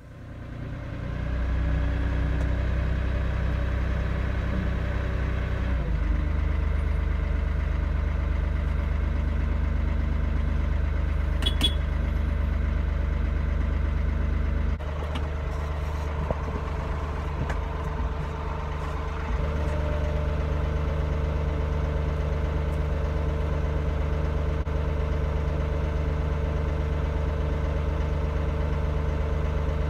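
Massey Ferguson 1835 tractor's diesel engine running steadily, heard from inside the cab, working to pull field fencing tight. Its note changes a few times as the load shifts, with one short sharp click about a third of the way in.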